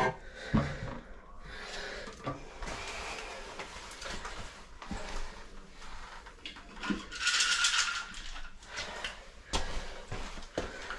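Scattered knocks, clicks and scuffs of a porcelain one-piece toilet being handled and settled on its wax ring, with a hissing rush lasting about a second a little past the middle.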